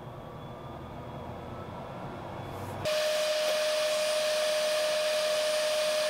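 A hot air rework station switches on about halfway through: a sudden, steady rush of blowing air with a constant whine. It is heating the board to lift off the Wi-Fi chip, whose pins have just been loaded with low-melt solder.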